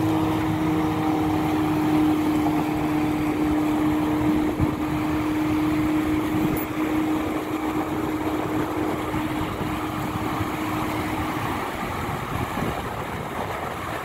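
Wind on the microphone and waves washing over a rocky shore, with an engine's steady drone underneath that stops about eleven seconds in.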